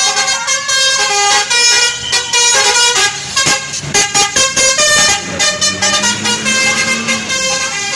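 Tour bus basuri musical horn playing a tune in quick stepped notes, several pitches at once, with a run of rapid short honks about halfway through and a lower held tone near the end.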